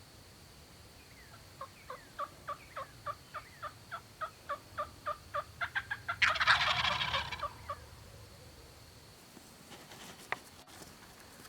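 Turkey yelps, a long run of short falling notes that quickens, then a loud rattling gobble about six seconds in. A few faint clicks near the end.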